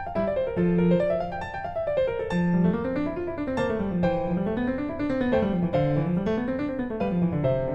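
Background piano music: a keyboard melody with notes running up and down in repeating waves.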